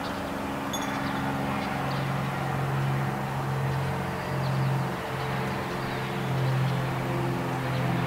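A steady low drone of several held tones, shifting a few times, with a few faint, short chirps of small birds over it.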